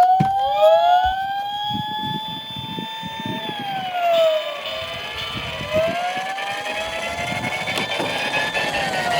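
Electronic sirens of toy emergency vehicles wailing, several at once, with slow rising and falling tones crossing over each other. Beneath them is the low rumble of the toy cars' wheels rolling down a slope.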